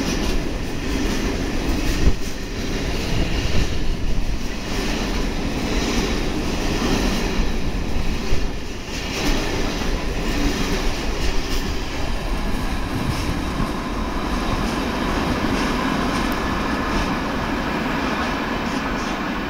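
Loaded container wagons of a freight train rolling past, wheels clattering on the rails with scattered knocks. The noise eases a little near the end as the tail of the train goes by.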